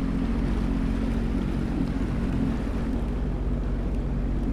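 Sea-Doo personal watercraft engine running steadily at low speed, a constant drone with a background hiss.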